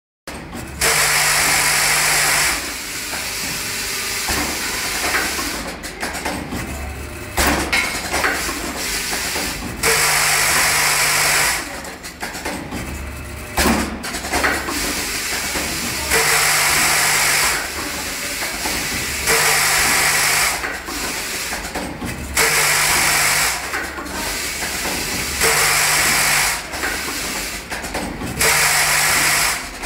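Vibratory bowl feeder running with a steady buzz while plastic plug bodies clatter around its spiral track. Loud hissing surges of a second or two come back every three seconds or so.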